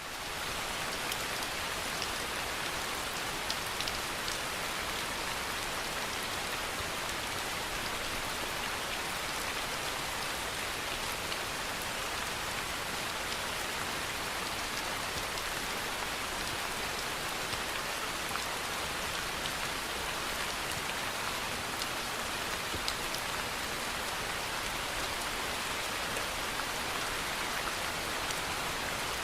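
Steady rain falling, a continuous even hiss with scattered drops ticking on a surface.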